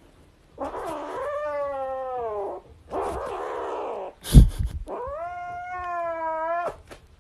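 Grey kitten giving two long, drawn-out yowls that fall in pitch, with a rougher, noisier cry between them, as a hand reaches for the plush toy it is clutching: a possessive warning over its toy. A loud knock about four seconds in.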